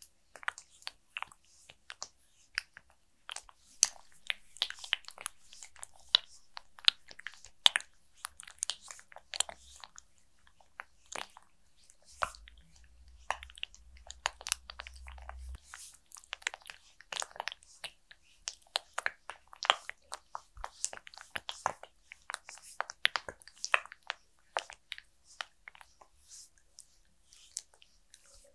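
Oiled hands massaging a mannequin's face, close to the microphone: an irregular stream of short wet clicks and squelches as fingers press, slide and lift off the slick skin.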